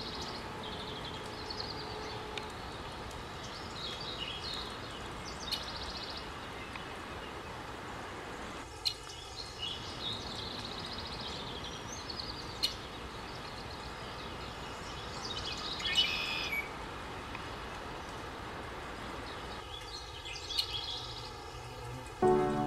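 Small birds chirping in short bouts every few seconds over a steady outdoor background hiss.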